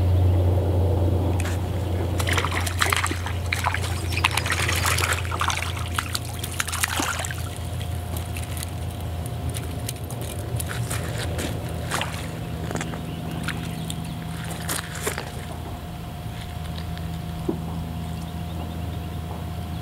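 A steady low engine drone that slowly fades, with a few seconds of splashing and sloshing water starting about two seconds in, then scattered light clicks.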